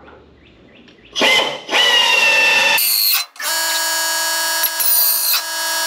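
Power drill boring holes through the sheet metal of a car's wheelhouse for spot welds. It runs twice: a short burst about a second in, then a longer steady run from about the middle on.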